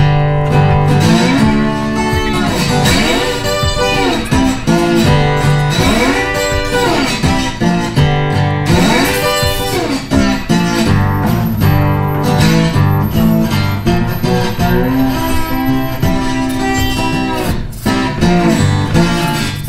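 Guitar-led instrumental background music over a steady bass line, with several notes that bend up and back down.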